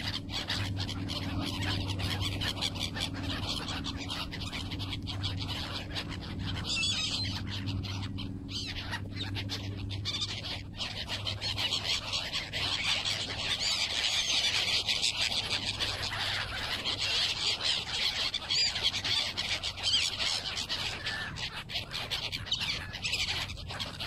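A flock of gulls calling, many high cries overlapping, busiest in the second half. A low steady hum underneath fades out about ten seconds in.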